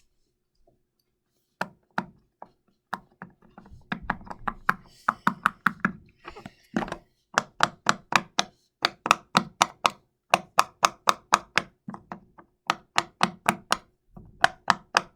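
Cupcake-shaped glitter silicone push-pop fidget toy being pressed bubble by bubble: a run of sharp pops, scattered at first, then several a second in a steady rhythm.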